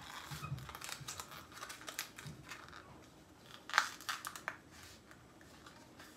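Cardboard glue trap being folded and bent by hand: paperboard crinkling and crackling in quick short crackles, the loudest about four seconds in, then dying away.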